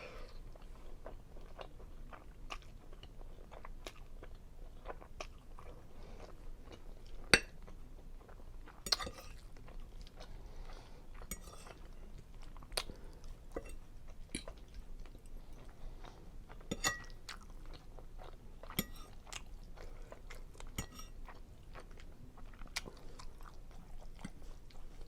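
Close-miked chewing of seafood linguine Alfredo: soft wet mouth sounds with many scattered short clicks, the loudest about seven and nine seconds in.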